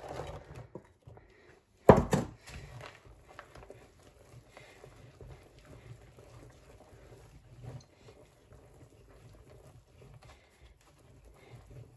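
Thick carrot cake batter being stirred by hand in a mixing bowl as sultanas are folded in: soft, irregular squelching and scraping. One sharp knock about two seconds in is the loudest sound.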